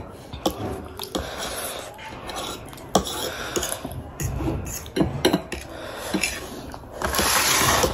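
Dishes and cutlery clinking and clattering as they are handled, a string of short sharp knocks. Near the end there is a louder rush of noise lasting nearly a second.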